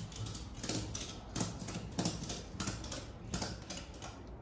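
Ratchet strap being tightened, its pawl clicking with each pull of the handle, about one stroke every two-thirds of a second.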